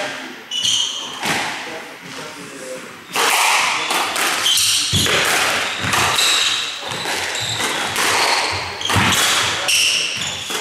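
Squash rally: the ball smacking off rackets and the court walls in quick succession, the hits sparse at first and coming fast from about three seconds in, with short high squeaks of court shoes on the wooden floor. The hits echo in the enclosed court.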